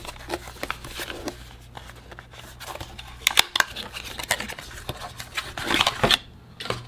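Handling of thin white cardboard packaging: light scrapes, taps and rubbing as a small insert box is opened and a power adapter with its coiled cord is slid out. Louder clusters come about three seconds in and again near six seconds.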